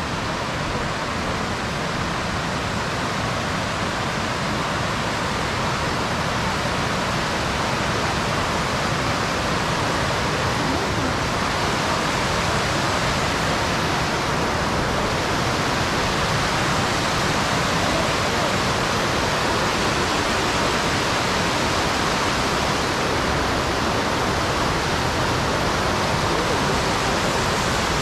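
Small waterfalls in a chain of lakes, a steady, even rush of falling water that grows slightly louder over the first several seconds, then holds.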